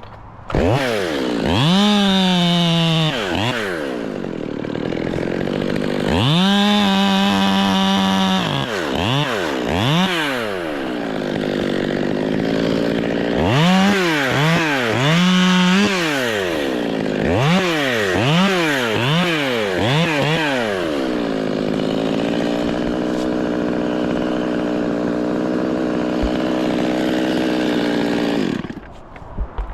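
Chainsaw engine started up and revved repeatedly, its pitch rising and falling with the throttle and held high for a second or two several times. It then runs at a steady, lower pitch for several seconds before cutting off suddenly near the end.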